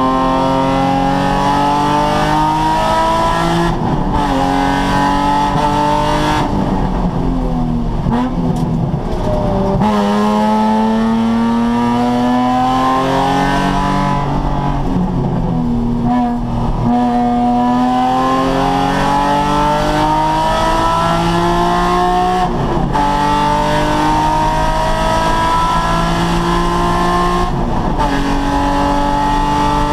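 Nissan 350Z's 3.5-litre V6 at track pace. Its pitch climbs steadily under hard acceleration, then drops suddenly about six times, at shifts or lifts for braking, before climbing again.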